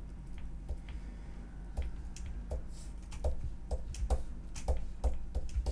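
Computer mouse clicking in an irregular run, about two or three clicks a second, over a steady low hum.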